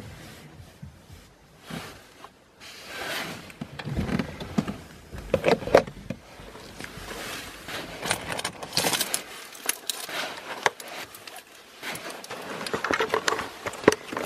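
Irregular rustling, clicking and clinking of small objects being handled, with several sharper knocks.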